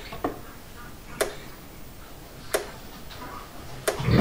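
Power Wizard PW18000 electric fence charger ticking with each high-voltage pulse it fires into the fence wire: sharp single clicks about every 1.3 seconds, four in all, some with a fainter second click just after.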